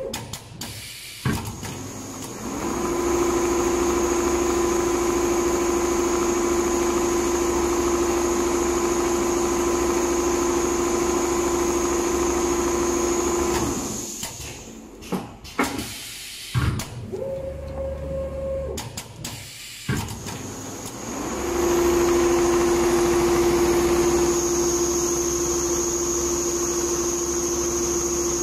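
Four-head computerized leather pattern sewing machine stitching car-interior leather: its drive whines up to a steady running speed for about ten seconds, winds down and stops with a few clicks and knocks, runs briefly at a higher pitch, then ramps up again to a steady run near the end.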